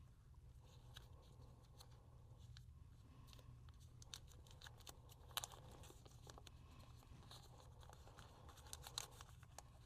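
Faint rustling and light clicks of small accessory packaging being handled and opened, with a sharper click about five seconds in and another near the end.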